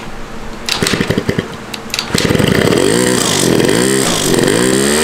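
Two-stroke Yamaha Zuma scooter engine kick-started: a few irregular firing strokes, then it catches about two seconds in and runs with its revs rising and falling unevenly. The engine is running poorly; the owner suspects a cheap carburettor and stale fuel.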